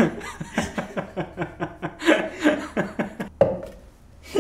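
Men laughing in quick repeated bursts, with a brief pause about three and a half seconds in before the laughter picks up again.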